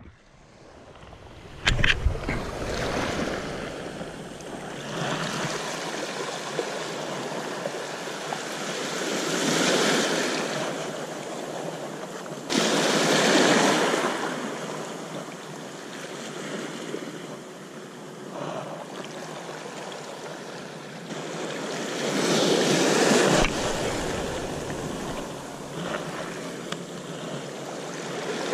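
Small sea waves washing over a rocky pebble shore, surging louder three times as bigger waves break. There is a brief loud bump about two seconds in.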